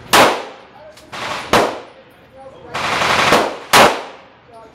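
SIG Sauer 9mm pistol fired about four times at an irregular pace, the last two shots close together, each crack trailing off in the echo of an indoor range.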